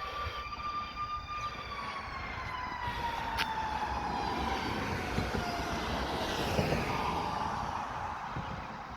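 Fire truck siren holding one high pitch, then slowly winding down over about five seconds, over the low rumble of the truck's engine, which grows louder through the middle. A sharp click about three seconds in.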